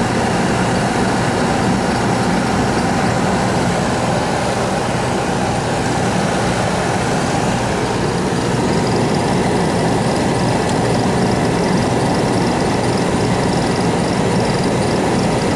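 Fuel oil furnace running: a steady burner and blower noise with a low hum underneath.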